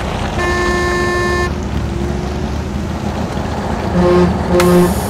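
Vehicle engine running with horn honks over it: one long honk about half a second in, then two short, lower, louder honks near the end.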